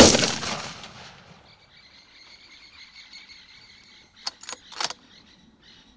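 A sudden loud burst at the very start, fading out over about a second and a half. Then insects in the bush chirr steadily and high-pitched, with three sharp clicks a little after four seconds.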